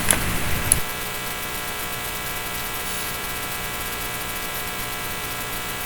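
Steady electrical hum with many even overtones. It settles in under a second after a brief stretch of noise and a click, then holds at an even level.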